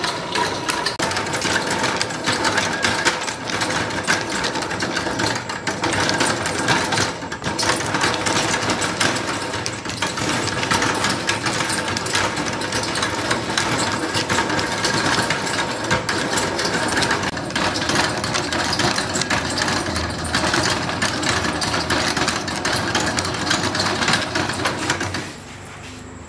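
Homemade bevel-gear box of a pedal drive spun fast by hand, its gears and shaft meshing with a rapid, steady clatter and a faint whine as the propeller shaft turns. Near the end the clatter stops.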